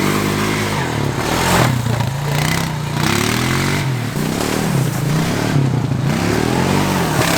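Honda 350 four-wheeler's single-cylinder engine run hard at full throttle through the gears, its pitch climbing and falling back about five times.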